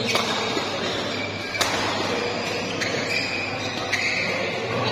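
Badminton rally: a racket smashes the shuttlecock with a sharp crack at the start, another strike comes about a second and a half in, and one more at the end, with short squeaks from shoes on the court and a murmuring crowd.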